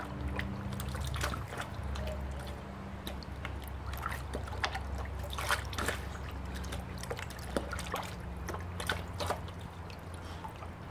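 Siberian husky puppy lapping water from a plastic bucket and pawing at it, making irregular splashes, drips and sloshes of water.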